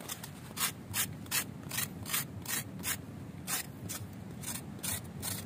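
Knife blade scraping the green bark of a Spanish plum (siniguelas) branch in short rhythmic strokes, about two to three a second, shaving it off to collect the sap.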